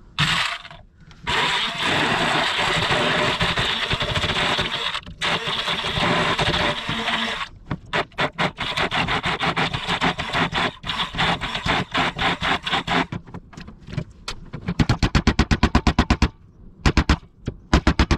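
Hand blender running, puréeing chopped dates with almond milk into a sticky paste. After a brief first burst it runs steadily for about six seconds, then goes on in short stop-start bursts, with a quick run of rapid pulses near the end.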